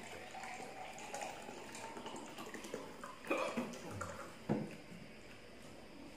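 Water poured from a plastic jug into a drinking glass, a steady pouring for about three seconds, followed by two sharp knocks, the louder one about four and a half seconds in.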